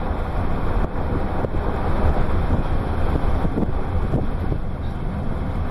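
Steady road and engine noise inside a moving car, with a low rumble and wind on the microphone.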